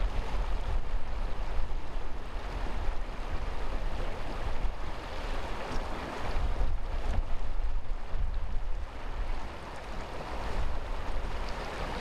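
Shallow river rushing over riffles, a steady wash of moving water, with wind buffeting the microphone in a low, uneven rumble.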